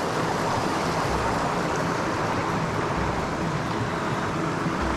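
Steady rushing of a cold mountain creek, with the water moving around a hiker wading through it.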